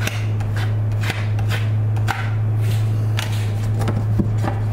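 A credit card being squeegeed over wet Kapton tape on a glass build plate, pushing out the soapy water in short swishing strokes about twice a second, over a steady low hum.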